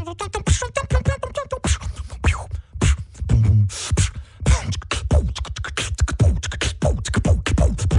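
Human beatboxing: a fast, dense run of vocal kick-drum thumps and snare and hi-hat clicks, with a few short gliding voiced sounds among them.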